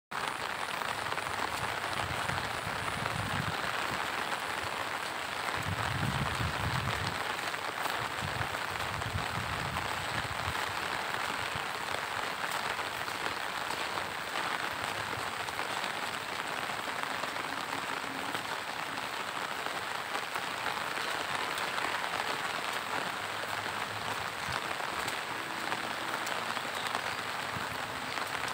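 Steady monsoon rain falling, an even hiss, with some low rumbling in the first ten seconds.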